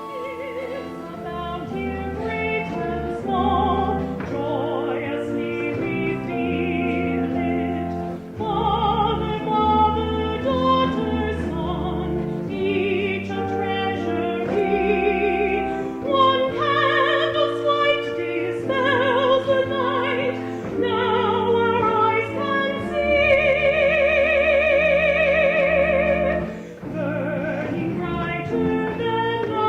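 Classical concert music: a trained operatic voice singing with wide vibrato over instrumental accompaniment, swelling into a long held note about three-quarters of the way through.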